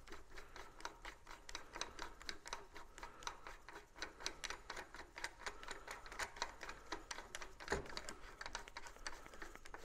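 Faint, quick, irregular metallic clicking as the slotted top nut is spun down the threads of a Honda CT70's steering stem by hand, with one heavier knock about eight seconds in.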